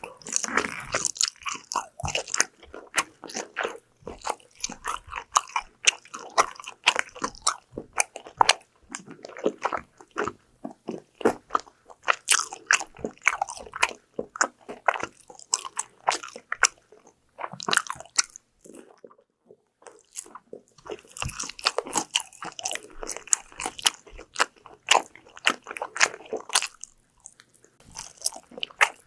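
Close-miked eating of crunchy fried food: crisp bites and crackling chews in quick succession, with a pause of about three seconds past the middle.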